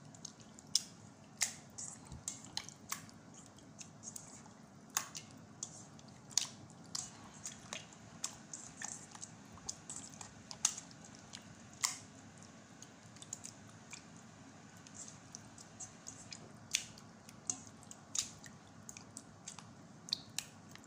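Raw fish fillets being mixed by hand with olive oil and lemon juice in a stainless steel bowl: irregular wet squelches and slaps, about one every second or so.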